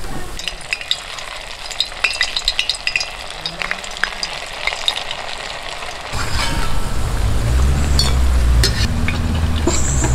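Potato and rice-flour snack pieces deep-frying in hot oil in a deep metal pan, sizzling with many sharp crackles. A low rumble joins from about six seconds in.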